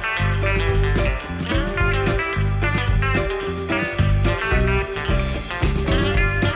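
Background music with plucked guitar over a steady beat, no vocals.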